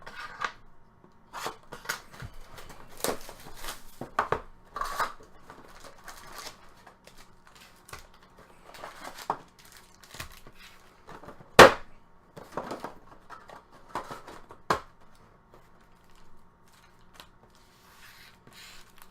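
Trading card packaging being opened by hand: irregular plastic tearing and crinkling, and cardboard rustling and clicking, with one sharp snap about eleven and a half seconds in.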